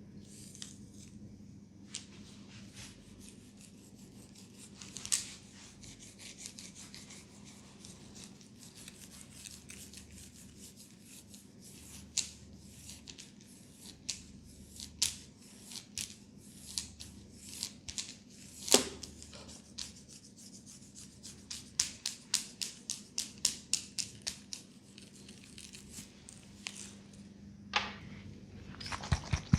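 Hands massaging a head: soft rubbing on hair and scalp with sharp clicks and snaps at irregular times, then a quick run of about three a second past the middle. A faint steady hum underneath.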